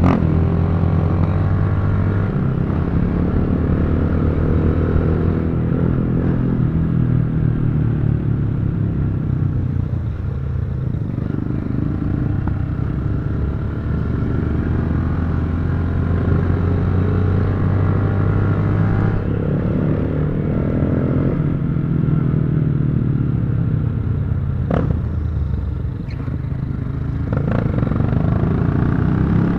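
Motorcycle engine running while riding, its note falling and rising as the throttle changes, with a brief clatter near the end.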